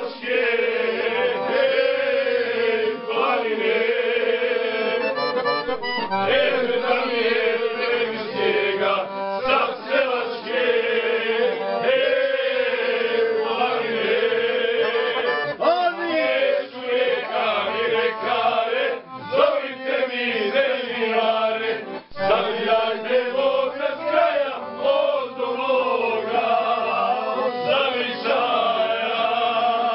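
A group of men singing together, loud and wavering, to a piano accordion accompaniment.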